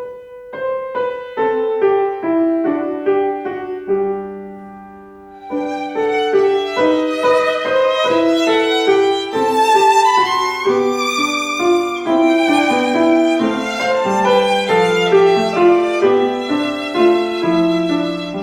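Instrumental music with violin. It opens with a run of short, fading notes, then from about five seconds in swells into a fuller melody of long, held notes.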